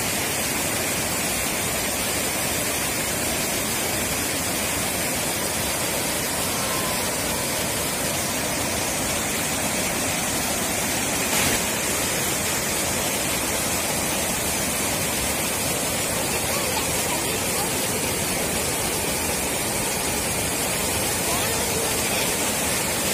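Swollen floodwater pouring over a low dam and churning through white-water rapids: a steady, unbroken rush of water.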